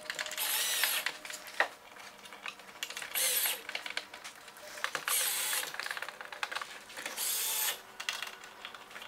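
Cordless drill-driver driving Phillips screws back into a truck grille assembly in four short bursts about two seconds apart, its motor whine rising and falling with each screw. There is a single sharp click between the first and second bursts.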